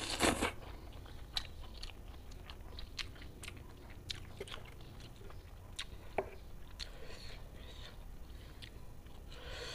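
A person slurping a mouthful of spicy fried instant noodles, then chewing with wet mouth smacks and scattered sharp clicks.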